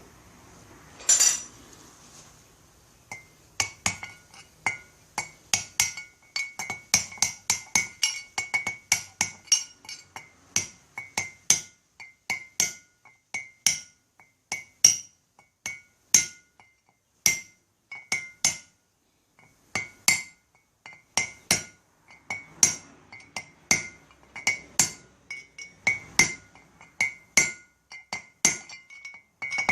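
A hammer striking a steel punch or drift against a front wheel hub's worn bearing seat: one sharp strike about a second in, then a long run of steady taps, roughly two to three a second, each ringing metallically.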